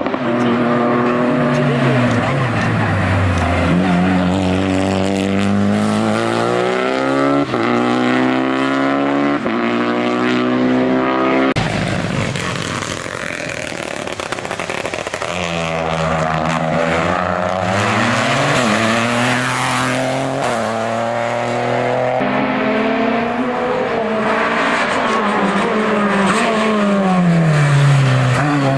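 Hill-climb race car engines revving hard, rising in pitch through quick upshifts and dropping away as they lift off for bends. About twelve seconds in the sound changes abruptly and a second car is heard climbing through its gears.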